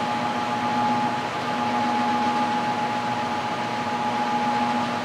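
Coleman Presidential electric furnace running steadily: an even rushing whir with a steady hum. The thermostat call has been cut, and the heating elements are shutting off one by one through their sequencers.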